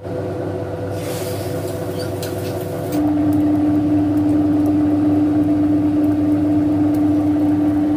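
Steady machine hum with a strong low tone, stepping louder about three seconds in. Beneath it, in the first few seconds, a faint hiss with fine crackles from egg frying in a pan.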